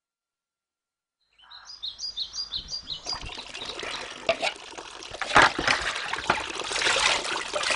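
Silence, then a bird chirping in a quick, even run for about a second and a half, followed by a steady splashing, trickling water sound with scattered clicks.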